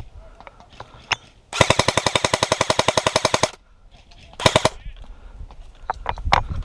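Airsoft gun firing on full auto: a burst of about two seconds at roughly a dozen shots a second, then a second short burst a second later.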